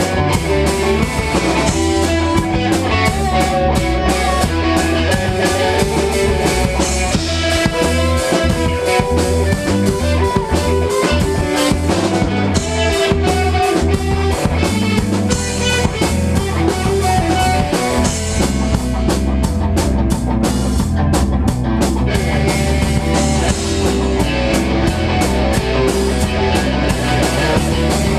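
A band playing live: electric guitars over a drum kit, without vocals.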